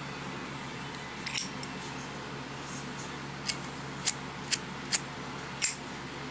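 Metal flip-top lighter's hinged lid being snapped open and shut: about six sharp metallic clicks, irregularly spaced, most of them after the middle.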